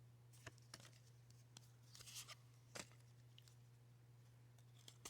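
Faint rustles and light clicks of baseball trading cards being handled and turned over, about half a dozen small sounds with a brief longer rustle about two seconds in, over a low steady hum.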